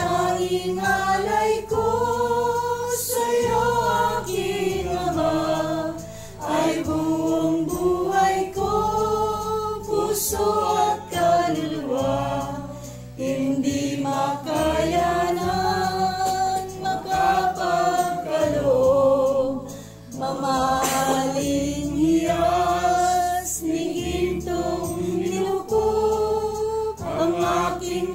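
A group of people singing a hymn together, a slow melody with long held notes and short breaks between phrases.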